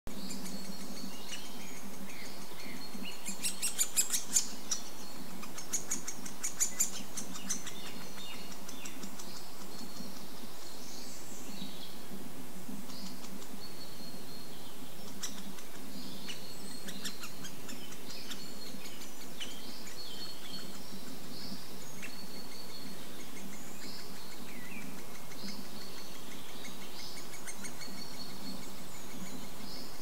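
Great spotted woodpecker chick calling from the nest hole: short high notes repeated throughout, with two louder bursts of rapid notes about three to four seconds in and again near six seconds, over a steady low hum.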